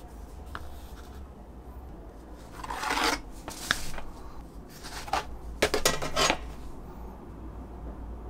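Flat Kydex plastic sheets and a knife being handled on a wooden workbench. A sliding rub comes about three seconds in, then a single click, and a short clatter of light knocks around six seconds.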